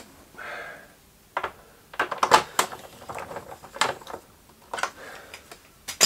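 Plastic side panel of a Honda CT125 being pressed into its clips and a panel fastener fitted with a small hand tool: a string of irregular sharp clicks and knocks, busiest about two seconds in.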